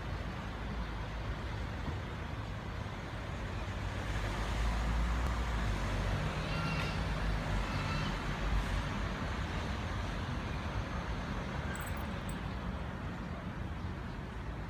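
Steady low rumble of road traffic, with a faint brief pitched call about halfway through.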